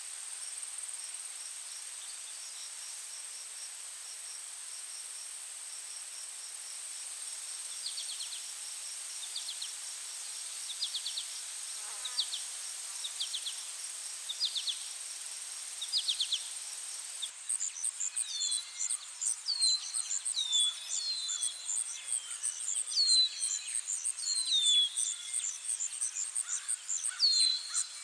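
Forest ambience: a steady high-pitched insect drone, with a bird giving short calls about once a second from about eight seconds in. Some seventeen seconds in it cuts abruptly to a louder recording: a rapid high trill and many birds whistling short down-slurred notes.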